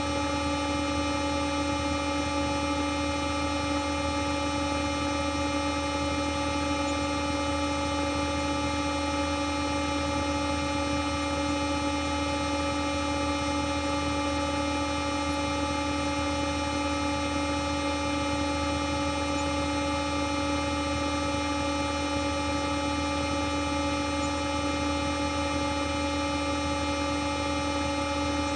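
Digitally processed 'G Major' edit of a sound effect: a steady electronic drone of many stacked, held tones, with the strongest low in the pitch range. It sounds like a horn chord and starts abruptly at the very beginning.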